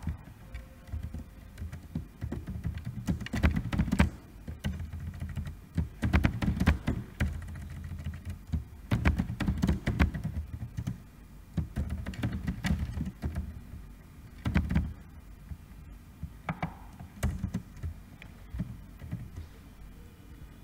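Typing on a computer keyboard: key clicks coming in short bursts, with pauses of a second or two between them.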